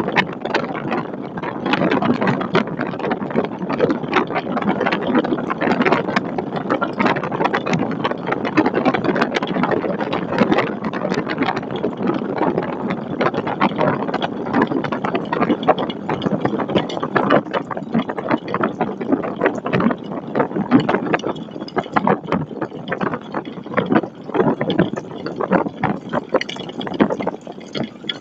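Storm wind buffeting an outdoor webcam microphone: a continuous, uneven rush with frequent sharp gusty spikes.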